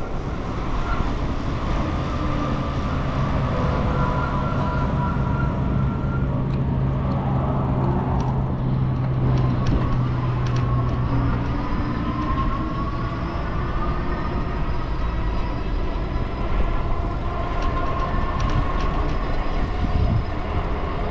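Wind rushing over the microphone and tyre noise from a Magnum Metro X e-bike riding on a paved trail, with a faint electric motor whine that falls as the bike slows about halfway through and rises again as it speeds back up.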